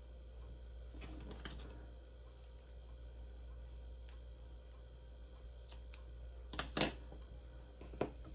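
Hands handling card and double-sided tape: faint rustling about a second in, then a few sharp clicks near the end.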